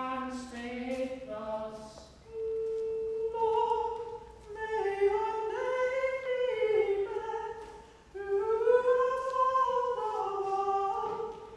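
Unaccompanied high singing voice: a long held note about two seconds in, then a slow melody that rises and falls in two phrases, with a short break between them. A voice is heard briefly at the start before the singing begins.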